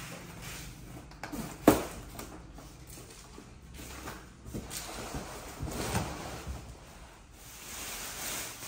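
Unboxing handling: a cardboard box being worked and slid up off an air cooler, with a sharp loud crack about one and a half seconds in and several softer knocks. Near the end comes the rustle of the cooler's plastic wrapping being pulled off.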